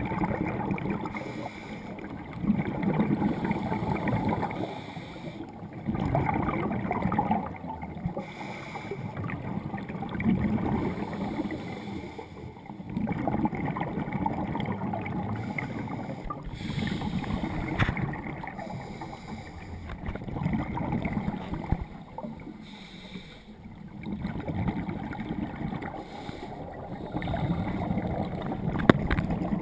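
Scuba divers' breathing heard underwater: bubbling rumbles of exhaled air from the regulators, swelling and fading with each breath every three to four seconds. A couple of sharp clicks, one near the end.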